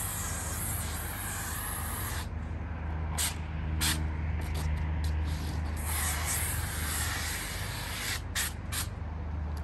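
Roofing spray guns hissing as foam and coating are sprayed onto a flat roof. The hiss cuts out after about two seconds and comes back in short spurts, runs steadily again from about six seconds in, then breaks into spurts near the end, over a steady low hum.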